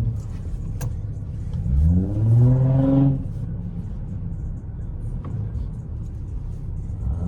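Car engine running at idle, revved once about two seconds in: the pitch climbs, holds for about a second, then falls back to idle.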